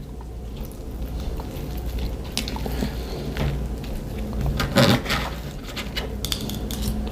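Cutlery clinking and scraping on a dinner plate while eating, a few scattered clicks, with one louder short sound about five seconds in, over a steady low hum.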